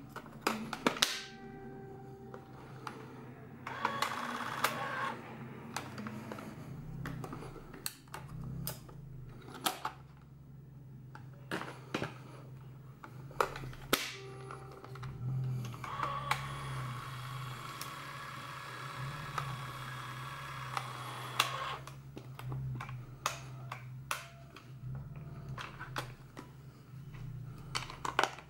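Plastic clicks and knocks from a Canon AF 310 XL S Super 8 camera being handled: its film cartridge door is shut and its lens cap is snapped on. A steady whirring runs for about five seconds midway through.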